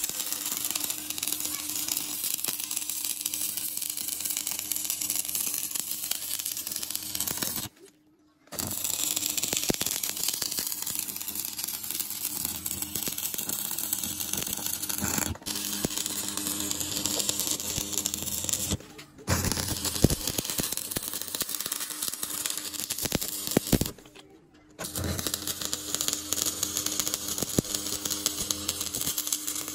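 Stick (arc) welding on rebar: the electrode's arc crackling and sizzling steadily, with the arc breaking off briefly a few times before restarting.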